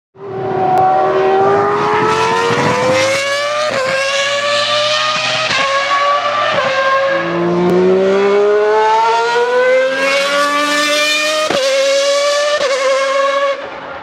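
Ferrari Formula 1 car engine at full throttle, its high-pitched note climbing steadily through each gear and dropping sharply at each of several quick upshifts, then fading near the end.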